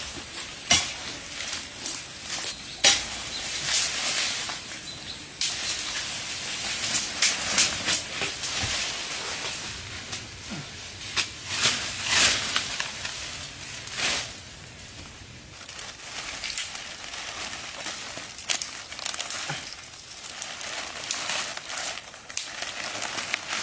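Leaves rustling and twigs snapping as a person pushes through dense forest undergrowth and grabs at leafy plants, in many irregular short crackles.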